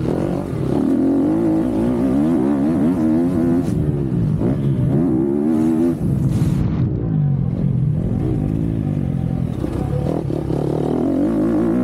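MX2 motocross bike engine at racing speed, heard from the rider's helmet. The pitch climbs and drops back again and again as the rider works the throttle.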